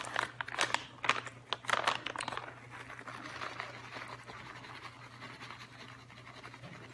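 Crushed almonds being added to a bowl of oatmeal: sharp crackly clicks and crinkles for the first two seconds or so, then softer rustling and scraping.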